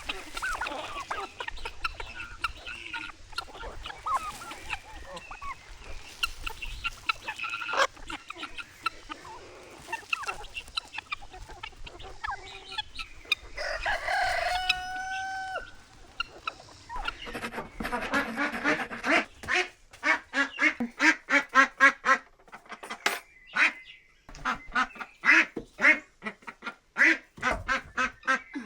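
Farmyard poultry calling: chickens clucking and ducks quacking, with a rooster crowing once about halfway through. In the second half the ducks break into a long run of rapid, loud quacks.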